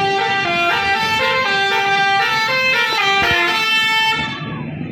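A bus's Basuri multi-tone 'telolet' horn playing a melody of held notes that step up and down in pitch, stopping about four seconds in, with traffic noise underneath.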